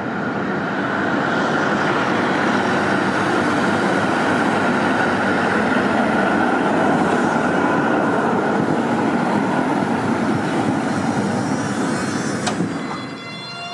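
Articulated tram passing close by on street track: a steady rumble of wheels and running gear with a faint constant high tone. Near the end the sound cuts sharply to a rising whine.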